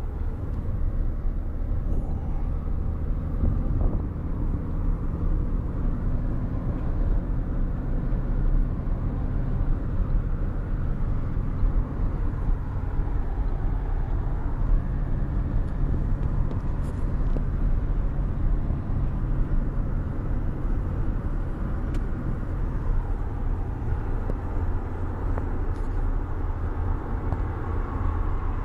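A car driving at a steady pace, its engine and road noise a continuous low drone heard from inside the cabin.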